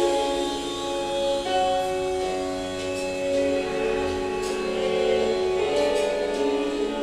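Music of slow, held chords that shift to new notes a couple of times.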